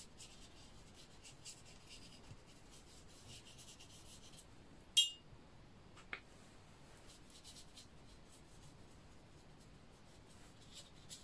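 Faint brushing of a watercolour brush stroking across paper, with a single sharp clink about five seconds in.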